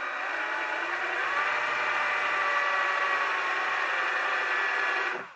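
Cordless drill motor running with a steady whine, picking up speed about a second in, then holding until it stops near the end.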